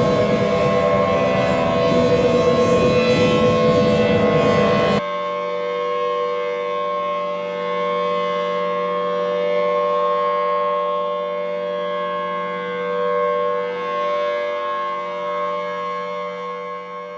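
Civil defense siren sounding. For the first five seconds it is loud and noisy with a slowly falling pitch. It then cuts abruptly to a cleaner, steady sound of several tones at once, which starts to fade near the end.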